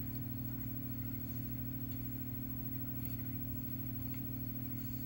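Steady low electrical hum with a second, higher-pitched hum layered over it, unchanging throughout, with a couple of faint ticks.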